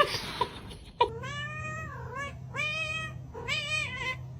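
Cat meowing repeatedly: three drawn-out meows, starting about a second in.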